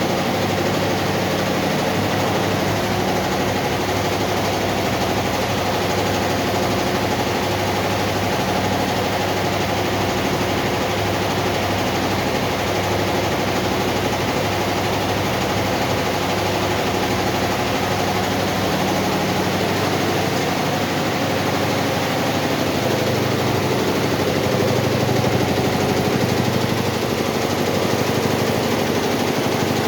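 Four-head computerized embroidery machine running steadily, its needles stitching in a rapid, even rhythm.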